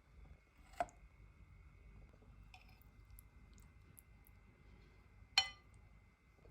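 Two sharp clinks of kitchenware, a small one about a second in and a louder, briefly ringing one near the end, over a faint steady hum.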